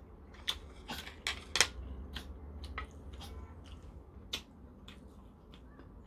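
Close-up eating sounds: chewing with irregular sharp wet clicks, then a crisp snap about four seconds in as a layer of raw onion is pulled off a wedge by hand, over a low steady hum.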